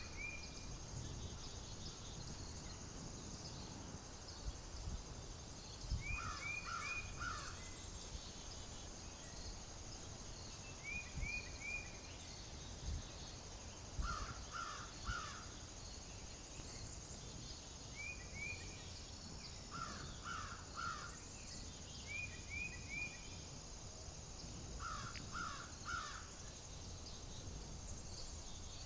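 Bird calls in short runs of three or four quick notes, repeating every few seconds and alternating between a lower and a higher pitch, over a steady high hiss and low wind rumble.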